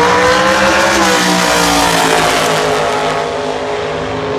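Two dragster race cars accelerating hard down the drag strip side by side. Their engines climb in pitch, then drop and fade after about a second as the cars pull away down the track.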